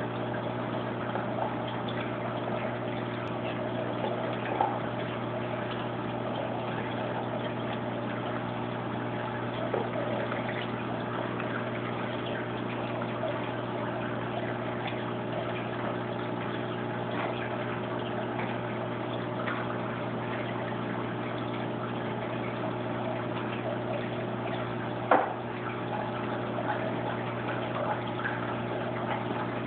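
Saltwater aquarium pump and filter running: a steady low hum with water rushing and gurgling, and one sharp click near the end.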